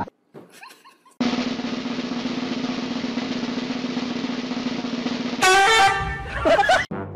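Snare-drum roll, steady for about four seconds after a second of near silence, then cut off by a loud, brief pitched sound effect that wavers in pitch.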